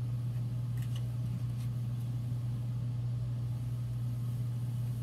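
Steady low hum, with a couple of faint ticks from playing cards being handled.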